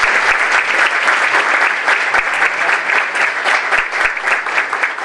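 Audience applauding: dense clapping from many hands that eases off a little toward the end.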